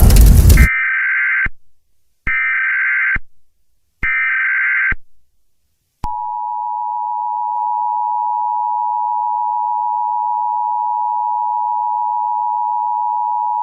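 A loud noisy crash cuts off, followed by three short bursts of Emergency Alert System SAME header data tones about a second apart, then from about six seconds in the steady two-tone EAS attention signal, which announces an emergency alert.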